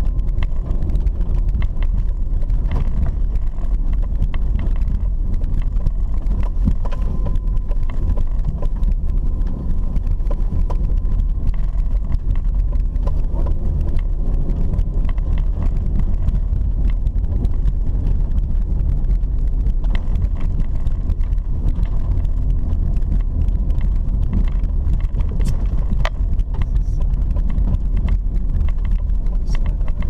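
Car driving along a rutted dirt road, heard from inside the cabin. A steady low rumble of engine and tyres on the dirt, with a few small knocks and rattles.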